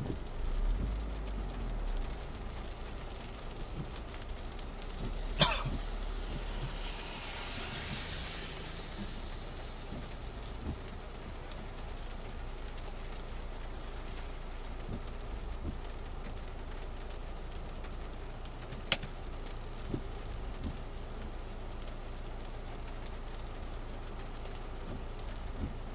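Rain falling on a car, heard from inside the cabin as a steady hiss while the car stands in traffic, with a low engine rumble. Two sharp clicks ring out, about five seconds in and again near nineteen seconds, the first followed by a brief high hiss.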